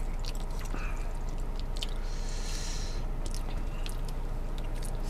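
Close-up eating sounds: a person chewing soft food, with small wet clicks and smacks, and a brief hiss about two seconds in.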